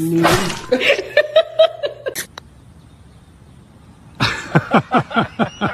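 A person laughing in short bursts, a pause of about two seconds, then another quick run of laughter.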